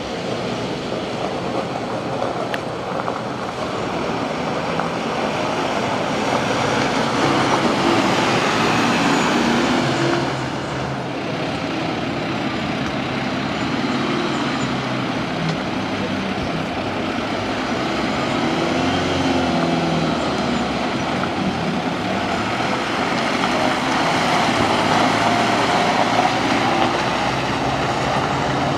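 Mercedes Unimog truck's diesel engine running as it is driven off-road, its pitch rising and falling several times as the engine revs up and eases off.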